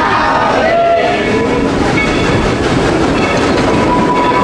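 Coal-fired steam train rolling along: a loud, steady train noise. Voices call out in the first second or so, and a steady high tone comes in near the end.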